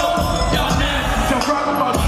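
Hip-hop music with vocals over it, loud and continuous.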